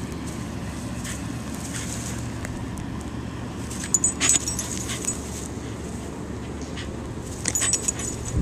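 Pembroke Welsh Corgi's metal collar tag jingling in two short bursts as the dog moves about, about four seconds in and again near the end, over a steady low rumble.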